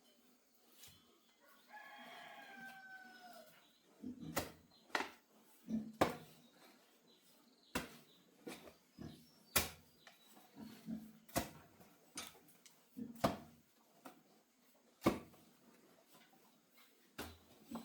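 A rooster crows once about two seconds in, its call falling in pitch at the end. Then a digging tool strikes the ground over and over, sharp thuds at roughly one a second.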